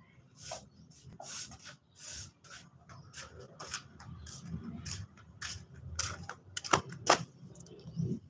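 Fibre broom sweeping a concrete floor: a run of short scratchy strokes, about one or two a second, with two sharper, louder strokes near the end.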